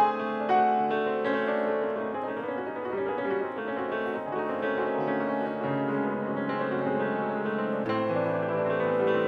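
Grand piano played solo: a flow of overlapping chords and single notes left ringing into each other, with a new low bass chord struck about eight seconds in.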